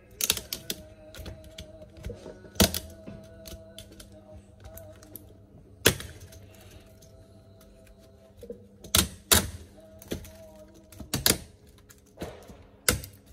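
Sharp cracks and clicks of a laptop keyboard being pried off its plastic top case, the plastic clips holding it snapping loose one at a time, about a dozen snaps spread unevenly, the loudest pair around nine seconds in.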